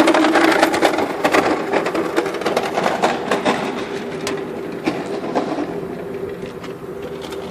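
Converted waste-oil furnace burning an oil and kerosene charge, running very rich. Dense rapid crackling and popping over a steady hum, the crackling thinning out and growing quieter toward the end.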